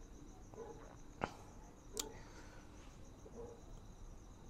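Crickets chirping steadily in the background, a fast even pulsing high trill. Two short sharp clicks cut in, about a second in and again just under a second later.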